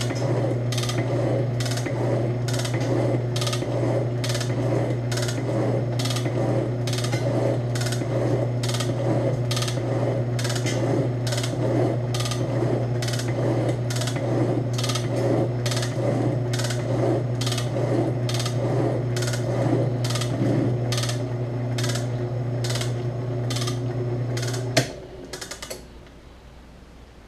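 Ammco 7-inch metal shaper running under power: a steady electric-motor hum with a click on each stroke of the ram, about one and a half strokes a second, as the carbide tool takes a chip. About 25 seconds in the motor is switched off with a sharp click and the hum stops.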